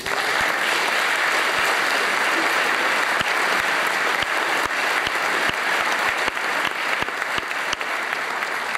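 Audience applauding, starting suddenly and holding steady, easing off a little near the end.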